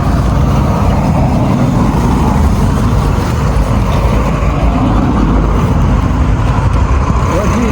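Steady, loud low rumble of outdoor background noise that does not change.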